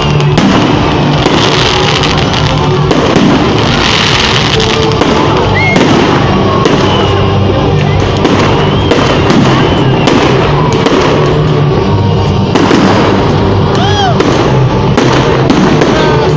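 New Year's fireworks going off continuously, a dense run of crackling and popping, with music playing underneath.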